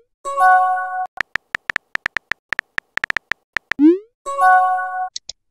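Phone messaging-app sound effects: a short chord-like chime, then a run of quick keyboard-tap ticks, a rising swoosh of a message being sent, and another chime, followed by a few faint ticks.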